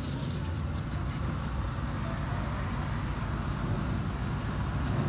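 A steady low rumble, with faint crinkling of thin filo pastry sheets as they are pressed into a baking tray, mostly in the first second.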